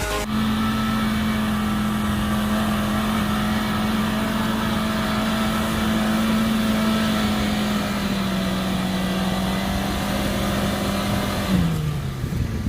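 Off-road 4x4's engine held at high revs at a steady pitch, dropping off sharply near the end.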